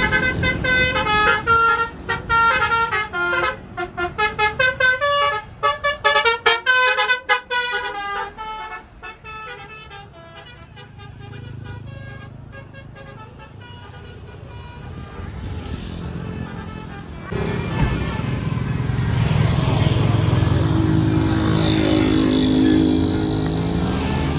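Basuri telolet bus horn playing a quick melody of short pitched notes that changes pitch from note to note, dying away about nine seconds in. From about seventeen seconds a vehicle's engine rumble and road noise grow louder and hold steady.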